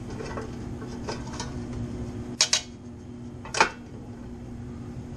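Sharp metallic clicks as a hand handles the head of a small benchtop drill press: a quick double click about two and a half seconds in and a single click about a second later, over a steady low hum.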